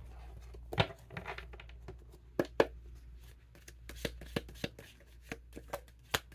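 Tarot cards being shuffled by hand: a couple of sharp snaps about two and a half seconds in, then a run of quick light taps, about three a second, from about four seconds on.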